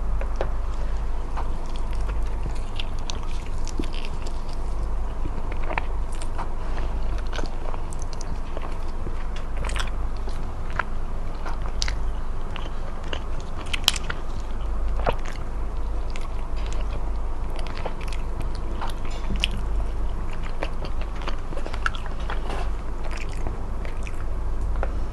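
Close-miked eating: a person biting and chewing smoked chicken, with many short, sharp clicks and crunches scattered throughout and one louder snap a little past the middle, over a low steady hum.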